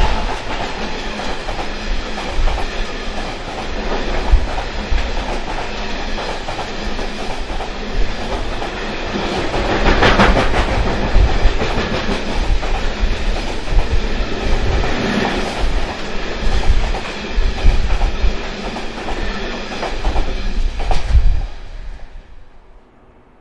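Freight train wagons rolling past, wheels clattering over the rail joints with irregular knocks, the sound dying away near the end.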